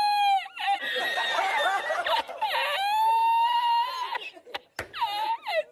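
A high-pitched voice laughing and squealing in bending, drawn-out notes, one long held squeal about three seconds in.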